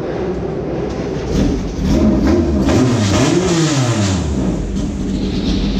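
Group C prototype race car engine passing on track, with the pitch climbing and dropping several times between about one and four seconds in as it revs, over a steady engine drone.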